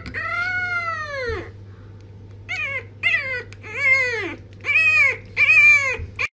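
French bulldog puppy howling in high, arched calls that rise then fall in pitch. One long howl comes first, then a run of five shorter ones.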